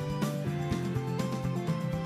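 Instrumental background music with a steady beat and a stepping melody.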